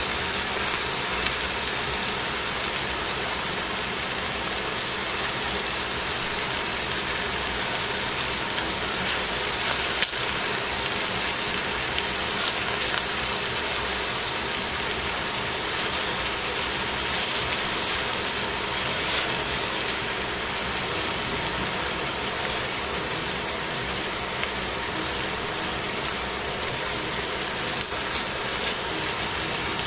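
Steady sizzling and hissing from a pot of cabbage and carrots cooking over heat. A few light clicks of metal tongs are heard as chicken pieces are laid on top.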